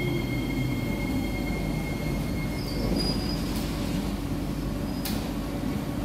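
Cabin of an SMRT C151C metro train braking into a station: a steady low rumble with thin, high squealing tones that shift higher about halfway through. A single sharp click comes about five seconds in as the train comes to a stop.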